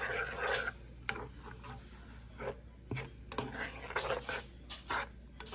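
Kitchen utensils clinking and scraping against dishes, with a few sharp separate clinks.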